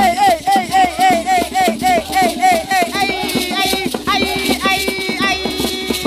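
Ghanaian jama: a group singing in short, repeated phrases to the driving beat of shaken beaded gourd rattles (shekere).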